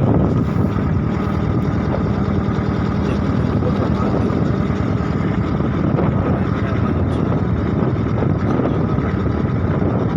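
A small engine running steadily at an even speed, with a low hum and no change in pitch.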